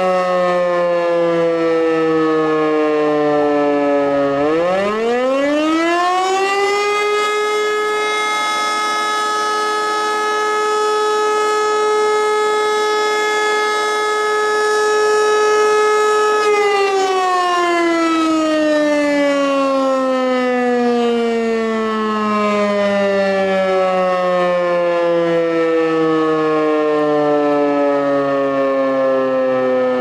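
Fire brigade alarm siren sounding the call-out: its tone falls away, then about four seconds in rises quickly to a steady high pitch, holds for about ten seconds, and slowly winds down again.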